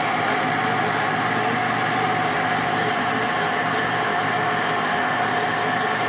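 Blender motor running steadily, blending banana, apple, cabbage and water into a smoothie.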